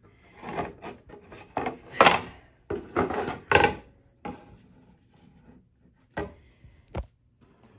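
Painted mirror frames being slid and scraped across a tabletop as they are laid out in a pattern, several rough scrapes in the first few seconds, then lighter handling and one sharp knock near the end.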